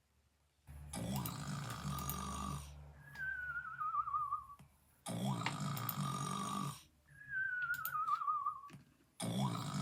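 Cartoon-style snoring. A long buzzing snore is followed by a wavering whistle that slides down in pitch. The pattern repeats about every four seconds: twice, then a third snore begins near the end.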